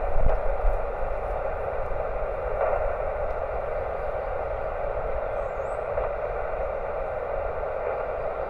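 Amateur radio transceiver's speaker hissing with steady band noise on 20 metres while listening for replies to a CQ call, a narrow band of static with a low rumble underneath.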